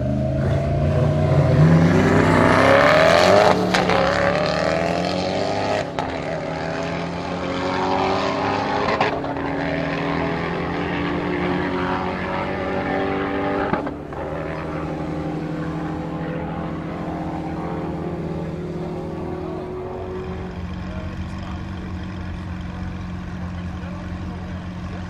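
Two Koenigsegg hypercars launching side by side in a drag race, engines revving hard with a rising pitch for the first few seconds. After several abrupt cuts, an engine runs at a steadier, quieter note.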